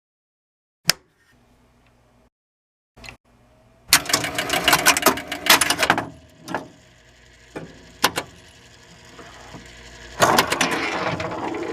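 Mechanical clicking and rattling: two single sharp clicks, then a dense clattering run of clicks, a few more separate clicks and a steadier rattle near the end.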